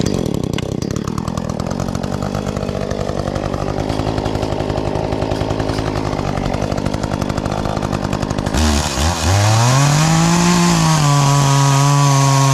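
Two-stroke chainsaw idling with a fast, even putter, then throttled up about two-thirds of the way in. The pitch rises, dips slightly and holds at a steady high rev to the end.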